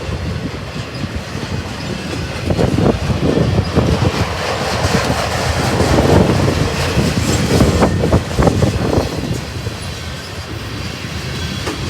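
Freight train cars rolling past close by, a steady rumble with the wheels clacking irregularly over the rail joints.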